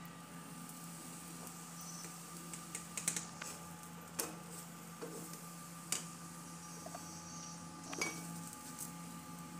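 Wooden spatula tapping and scraping on an iron tawa as a paratha is turned and pressed on it: a few sharp clicks and taps spread over several seconds, over a faint steady hum.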